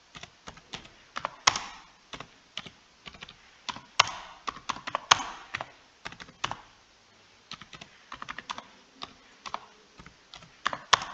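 Computer keyboard typing: quick, uneven keystroke clicks, some louder than others, with a short pause a little past halfway.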